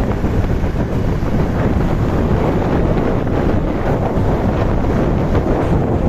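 Wind buffeting the microphone of a moving motorcycle: a loud, steady rushing noise with a heavy low rumble.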